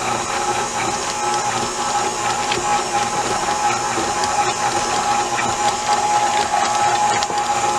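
Electric mixer running at a steady speed, its beater whirring through thick cream cheese and powdered sugar icing. It makes an even motor whine with no change in speed.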